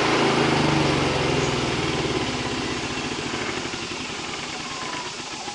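Yamaha generator's engine running, then slowing and fading away over a few seconds as it winds down after being shut off.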